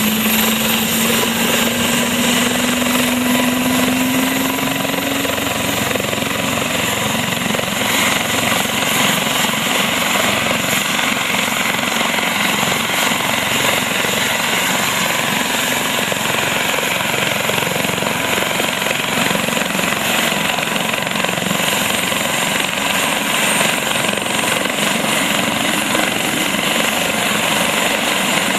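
Helicopter running on the ground: a loud, steady rush of turbine and rotor noise. A low hum rises in pitch over the first few seconds.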